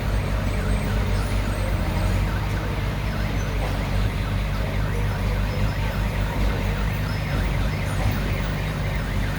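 Heavy diesel earthmoving machinery running steadily with a low engine drone, over a faint high squeal that rises and falls several times a second.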